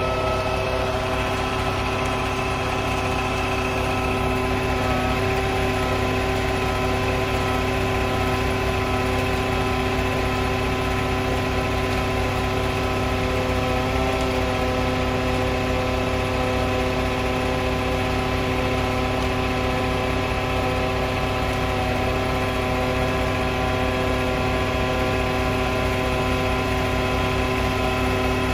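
Cement mixer truck's diesel engine idling steadily, with several steady whining tones held over the engine note.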